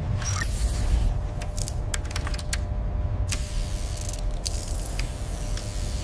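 Scattered short mechanical clicks and ticks, with brief hisses, over a steady low rumble.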